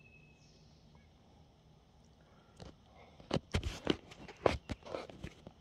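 Quiet for about two and a half seconds, then a run of irregular soft thumps and rustles: footsteps through grass with the phone being handled.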